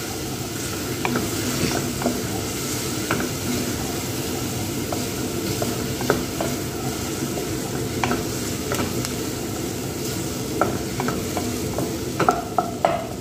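Chopped onion sizzling in hot oil in a metal pot, stirred with a wooden spoon that taps against the pot now and then, the taps coming more often near the end.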